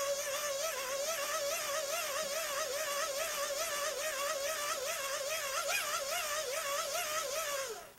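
A steady wavering tone with overtones from the Eton emergency radio's speaker, like a drifting radio whistle. It holds one pitch that wobbles up and down, then cuts off shortly before the end.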